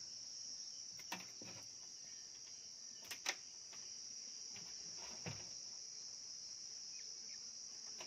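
Faint, steady high-pitched chirring of crickets, with a few sharp clicks from scissors stripping insulation off thin electrical wires, two of them close together about three seconds in.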